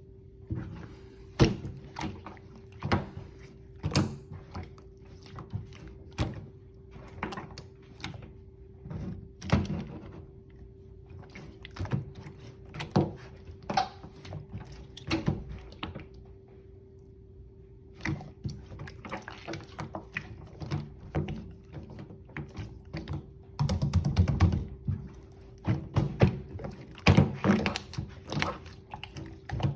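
Slime being squished, poked and stretched by hand, giving irregular soft thuds, pops and sticky clicks, busier near the end, over a faint steady hum.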